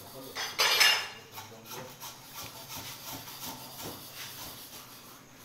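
Butcher's knife cutting and scraping through a beef hindquarter, with one louder scrape about half a second in, then quieter, irregular strokes.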